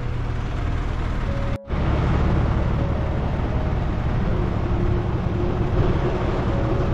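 Large TCM forklift's engine running steadily as it carries a stack of panels on its forks. The sound drops out briefly about one and a half seconds in.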